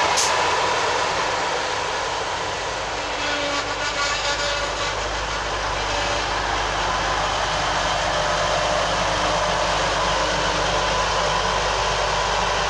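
TransPennine Express Class 185 diesel multiple unit pulling slowly into the platform, its diesel engines running and wheels rolling on the rails, with a brief high squeal at the start. A low engine drone grows stronger about five seconds in as the train draws to a stop.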